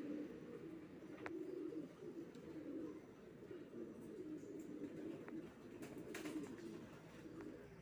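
King pigeons cooing softly: faint, low coos repeating over and over, with a couple of faint clicks.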